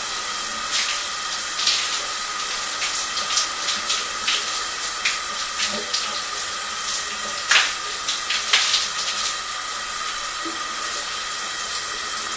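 Shower running: a steady hiss of falling spray with irregular louder splashes, the two strongest about seven and a half and eight and a half seconds in, over a thin steady tone.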